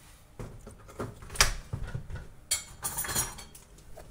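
Kitchen items being handled: a few sharp knocks, the loudest about a second and a half in, then a short rattling clatter around three seconds in.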